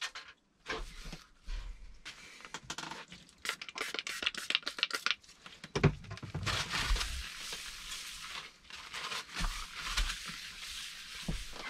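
Crinkling and scattered small clicks as a white wiping cloth is handled, then the cloth rubbed back and forth across a varnished wooden desk top, a steady rubbing sound from about six seconds in.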